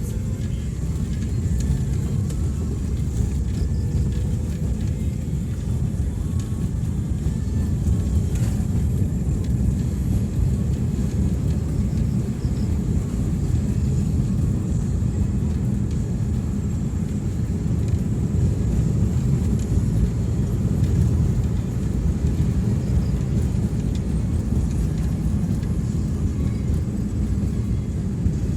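Steady low rumble of a vehicle travelling along a road: engine and road noise.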